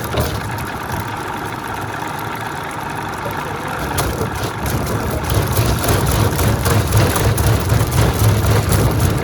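Log veneer peeling machine running, a steady mechanical din with scattered short ticks and a heavier low rumble that builds over the second half.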